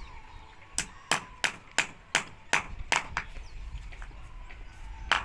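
A run of sharp, evenly paced knocks, about three a second, stopping for a couple of seconds and starting again near the end.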